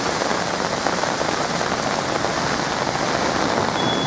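Heavy downpour: torrential rain pouring steadily onto surfaces.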